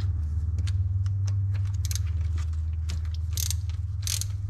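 Hand ratchet clicking in short, irregular runs as a spark plug is worked loose from the engine's front cylinder, over a steady low hum. There are a couple of brief rasps near the end.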